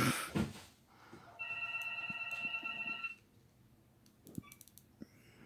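A phone's electronic ringtone: one steady, held tone of under two seconds about a second and a half in, followed by a few faint clicks.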